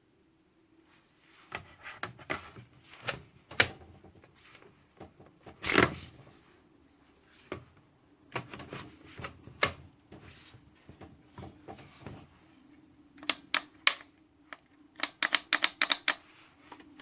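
Irregular plastic clicks and knocks from handling a 36-volt battery chainsaw and its battery pack, as the pack is worked out of and back into its slot. The clicks come in a quick cluster near the end. The pack not being fully seated is why the saw would not start.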